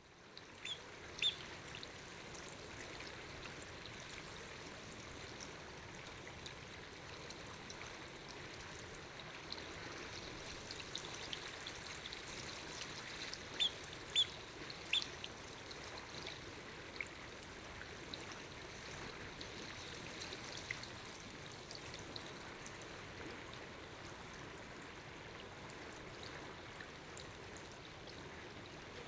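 Spotted sandpiper giving short, high, piping calls, a pair near the start and a louder cluster of three about halfway through, with fainter single notes between. Under them runs a steady hiss of flowing water.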